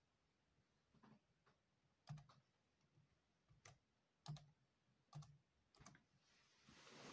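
Faint, unevenly spaced key presses on a Dell Latitude E5410 laptop keyboard, about a dozen clicks, as a Wi-Fi password is typed in. A soft rustle swells near the end.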